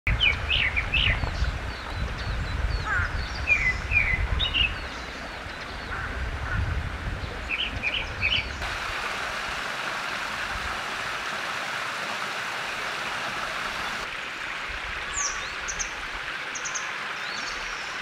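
Forest birds chirping, with a low rumble under the first few seconds. About halfway through, the sound switches to a small mountain stream running steadily over rocks. A few seconds later it switches back to high, scattered bird calls.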